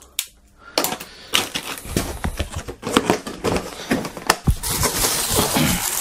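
Plastic magnetic construction pieces clicking and clattering as they are handled in a plastic storage box, then plastic wrapping crinkling and rustling through the last second or so.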